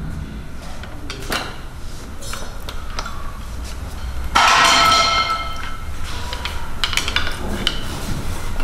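Scattered metallic clinks and taps of tools on engine parts during teardown of an engine's bottom end, over a steady low hum. About four and a half seconds in comes one louder metallic clang that rings for under a second.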